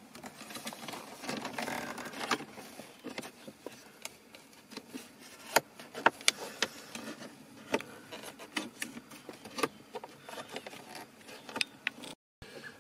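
Irregular small clicks, ticks and scrapes of fingers working behind a BMW E36 dashboard, starting the small air-duct bracket screw by hand behind the centre air vent.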